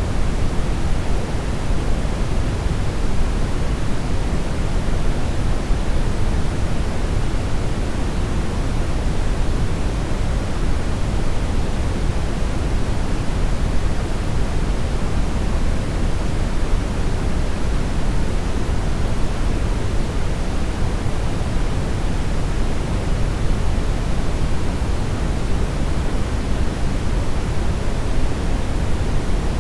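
Steady brown noise: a continuous, even rumbling hiss, strongest in the low end and falling off toward the highs, with no changes.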